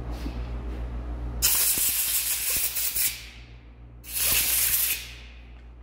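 Two hissing bursts from a pressurised spray nozzle, the first about a second and a half long and the second about a second, over a steady low shop hum.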